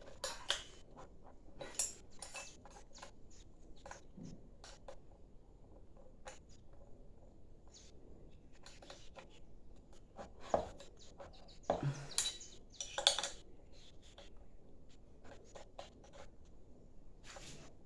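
Scattered light metallic clicks and taps of a wrench working the cylinder bolts of a two-stroke brushcutter engine as they are tightened, with a louder cluster of clicks about two-thirds of the way through.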